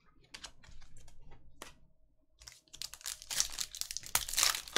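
Trading cards being flipped through by hand, a few soft clicks, then from about halfway a foil trading-card pack being torn open and crinkled, growing louder near the end.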